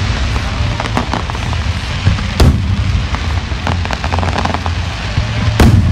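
Aerial fireworks bursting: two loud booms about three seconds apart, one about two and a half seconds in and one near the end, with many smaller crackling pops between them over a steady low rumble.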